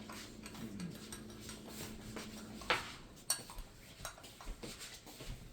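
Spoon and mug clinking with small knocks of kitchenware, including a few sharp clinks about halfway through. A steady low hum underneath stops just before them.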